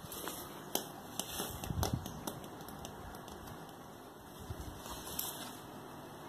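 Handling noise: scattered clicks, taps and rustles as the paper model and the recording phone are moved, busiest in the first two and a half seconds and again briefly about five seconds in, over a steady background hiss.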